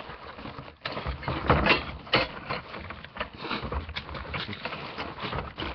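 Handling noise from a boxed metal model car kit: irregular clicks, rattles and crackles as the bagged metal and plastic parts and the box are moved about, loudest about a second and a half to two seconds in.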